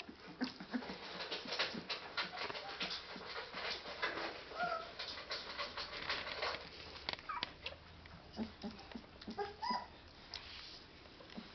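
13-day-old Leonberger puppies suckling at their mother: a rapid run of small wet clicks, thickest in the first half, with short squeaks and whimpers scattered through it.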